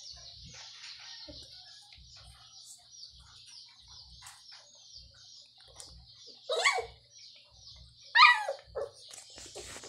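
Puppy giving two short, high yelps about a second and a half apart in the second half, each falling in pitch. Soft low thuds and a faint high hiss run underneath.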